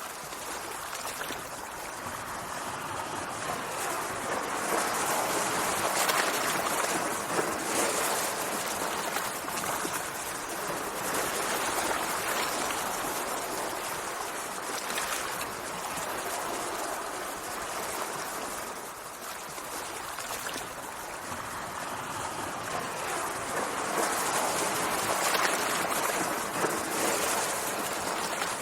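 Sea waves washing and churning continuously, swelling louder and easing back every few seconds.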